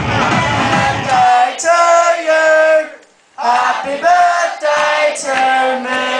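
Loud dance track over a party sound system; about a second in the beat and bass drop out, leaving sung vocals in short sustained phrases, with a brief break near the middle.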